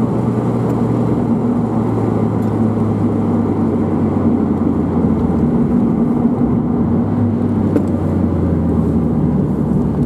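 Mazda MX-5's 1.8-litre 16-valve four-cylinder running through a Jetex Fortex sport exhaust while driving, with tyre and road noise. The engine note holds steady, then drops in pitch a little after halfway as the car slows into a bend.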